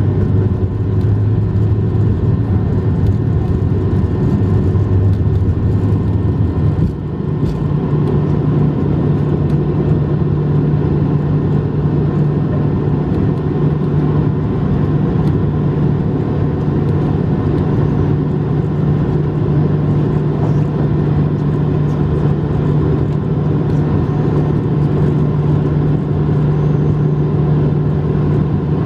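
Airbus A220-100's Pratt & Whitney PW1500G geared turbofan engines at high thrust during takeoff and climb-out, heard inside the cabin as a steady loud rush with a low hum. About seven seconds in the level dips briefly with a faint knock, and the hum then steps up to a higher pitch and holds.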